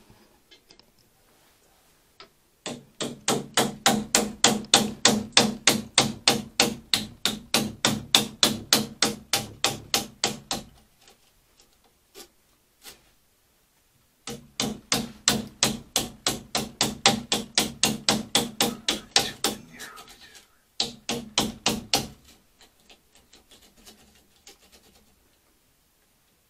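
Rapid hammer blows, about four a second, each with a short metallic ring: a long run, a pause of a few seconds, a second long run, then a short final burst.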